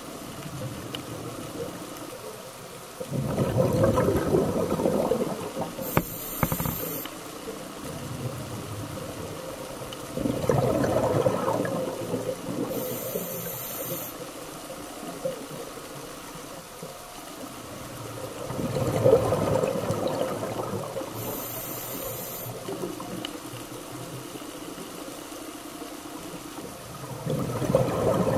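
Scuba diver breathing through a regulator underwater: four bursts of exhaled bubbles of two to three seconds each, about every eight seconds, with a short high hiss of the regulator on the inhale after each of the first three.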